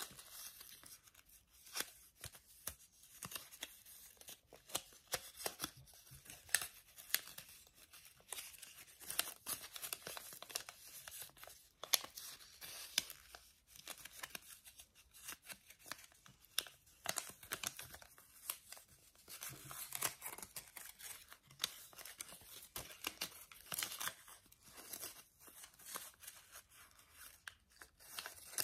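A sheet of origami paper being handled, folded and creased by hand: faint, irregular rustling and crinkling with many short, sharp crackles.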